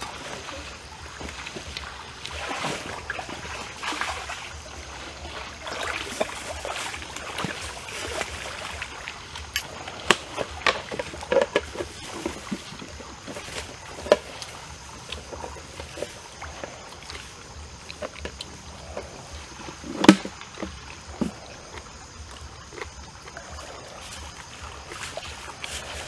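Water trickling and lapping at the bank, with scattered small clicks and knocks throughout and a sharper knock about twenty seconds in.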